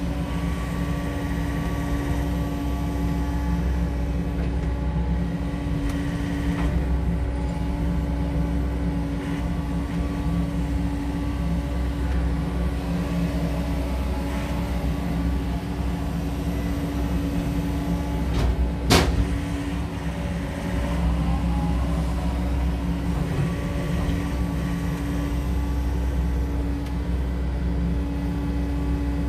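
SANY SY80U mini excavator's diesel engine running steadily while the arm and bucket work, with one sharp knock about two-thirds of the way through.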